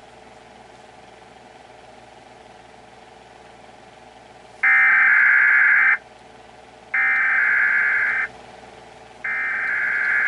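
Emergency Alert System SAME header: three harsh, even data-buzz bursts, each a little over a second long and about a second apart, beginning about four and a half seconds in after a low steady hum. They are the coded header that opens an emergency alert broadcast.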